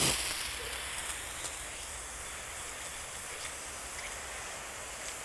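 Water spraying steadily from a garden hose nozzle in a shower pattern, emptying the water left in the hose.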